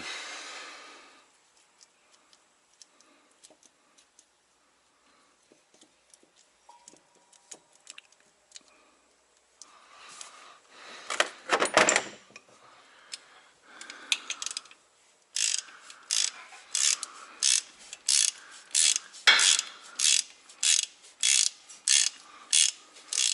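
Hand ratchet wrench working, with scattered tool clicks and clanks at first and then, from about halfway through, an even run of ratcheting strokes about two a second, tightening the mounting bolts of a truck's A/C compressor.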